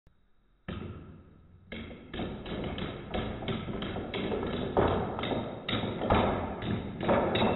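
A line of padlocks toppling one into the next like dominoes: a steady run of knocks and clacks, about three a second, starting just under a second in.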